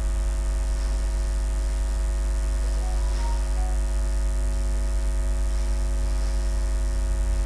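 Steady electrical mains hum with many higher overtones and a layer of hiss, picked up by a poor-quality microphone.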